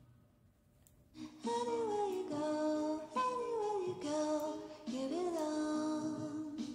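Background music with a woman's voice singing a gliding melody. It comes in about a second and a half in, after a brief quiet gap.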